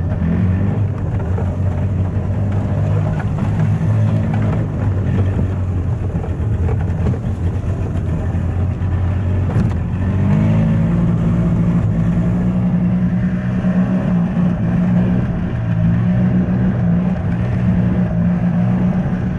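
Early-1980s Yamaha golf cart's two-stroke engine running while the cart drives along, its note rising a little about ten seconds in and holding there. The engine is hesitating, which the owner puts down to a carburetor gummed up by ethanol fuel left sitting in it.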